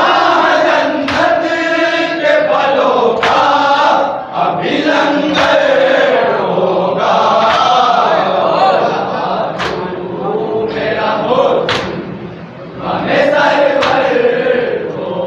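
Men chanting a tarahi salam, an Urdu mourning elegy, a reciter on a microphone with the group joining in, cut by sharp chest-beating slaps (matam) now and then.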